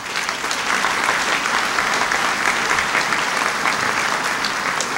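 A crowd applauding steadily with many hands clapping, easing off slightly near the end.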